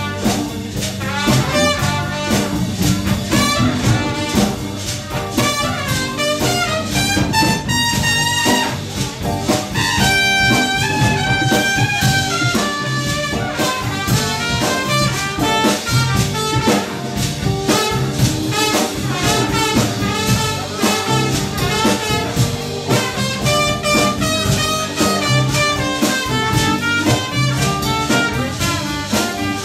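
Jazz music with horns melodic over drums, playing continuously.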